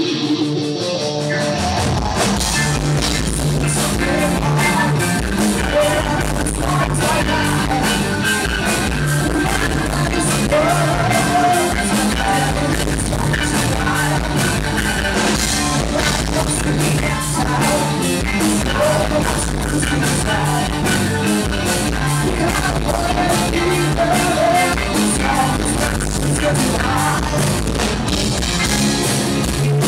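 Rock band playing live: electric guitar, then drums and bass come in about two seconds in, and a singer's voice rises over the full band.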